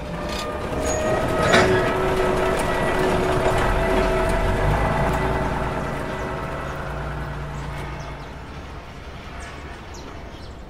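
A large engine or machine running steadily, a low rumble with a few steady hum tones, loudest for the first several seconds and then fading away. A short sharp burst of noise about one and a half seconds in.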